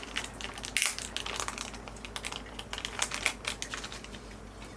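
Small plastic accessories and their packaging being handled: irregular light clicks and crinkles, with a louder crackle about a second in.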